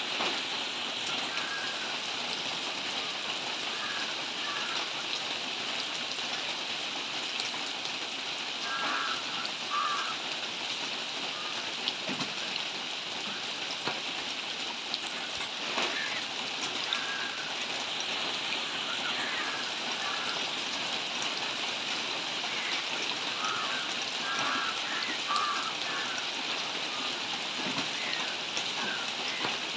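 Steady rain falling on leafy vegetation, an even hiss with no break.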